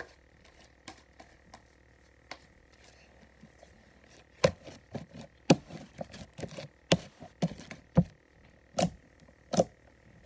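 Slime being squeezed and kneaded by hand, making wet pops and clicks. The sounds are faint and sparse at first, then turn loud and come about twice a second from about halfway in.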